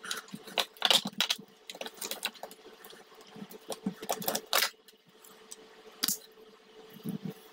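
Irregular clicks and knocks of 3D-printed plastic parts being handled as a road-wheel suspension arm is worked loose and pulled off its shaft on a model tank hull.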